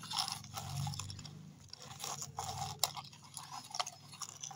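Gritty scraping and crunching of dry soil as a plastic toy backhoe loader's bucket is pushed through it and tipped into a toy tractor trolley. A sharp plastic click comes a little under three seconds in.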